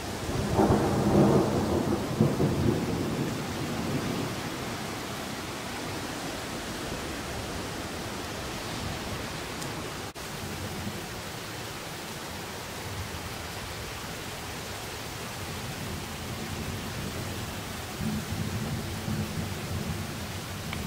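Thunder rumbling about half a second in, loudest for the first couple of seconds and dying away over the next few, over a steady hiss of rain. A fainter low rumble of thunder returns near the end.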